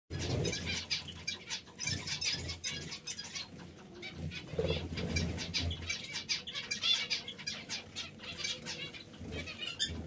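Small pet parrots chattering in an aviary: a continuous stream of quick, high chirps, with a few low thuds.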